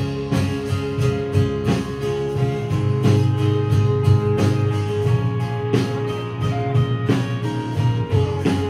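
A rock band playing: guitar chords over a strong bass line, with a steady beat struck about every 0.7 seconds.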